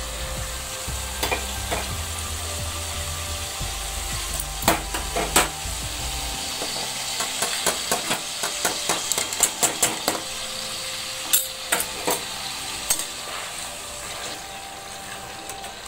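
Chicken pieces sizzling steadily in hot oil in a kadhai as ginger-garlic paste goes in, with a metal spatula knocking and scraping against the pan while the pieces are stirred.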